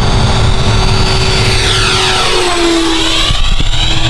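Dynam Meteor V3's 70 mm 12-blade electric ducted fan whining as the jet makes a fast pass, its pitch dropping about two seconds in as it goes by. Under it is a steady low rumble.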